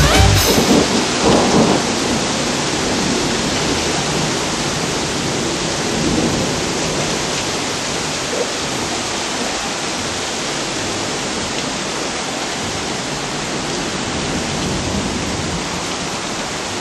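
Heavy rain pouring down in a storm, a dense, even roar of water that holds steady throughout.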